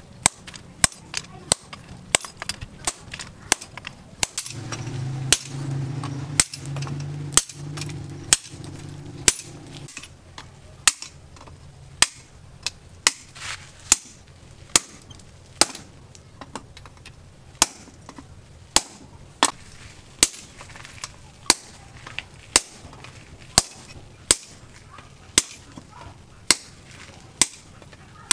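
Hand hammer striking red-hot steel on a post anvil: a steady run of sharp metallic blows, about one to two a second, as the bar is forged into hooks.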